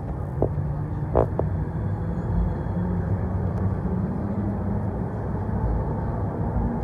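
ED4M electric multiple unit running along the track: a steady rumble of wheels and running gear, with a few short squeaks about a second in.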